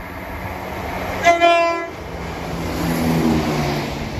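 Class 170 Turbostar diesel multiple unit sounds one short horn note about a second in, then passes close by with its diesel engines and wheels on the rails, loudest about three seconds in and fading towards the end.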